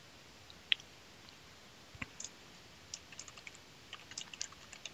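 Faint typing on a computer keyboard: light, irregular key clicks from about two seconds in, after a single click near the start.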